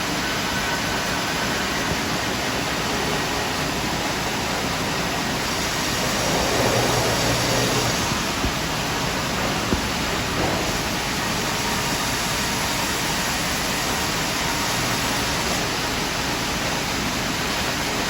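Large double-cut band sawmill running, a steady rushing noise with a brief swell about six seconds in and a couple of short clicks a little later.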